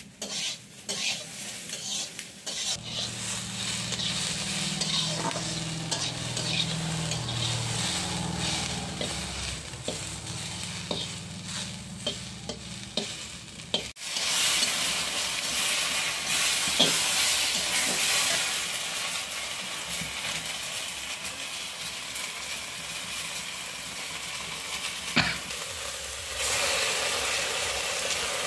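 Spice paste with garlic sizzling as it fries in a wok, with a metal spatula scraping and stirring against the pan. A low hum sits under the frying during the first half, and the sizzle turns louder after a break about halfway through.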